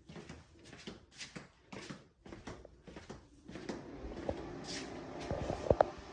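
Handling noise from fitting windshield trim pieces: irregular rustling and rubbing of plastic and rubber, then a few knocks and two sharp clicks close together near the end.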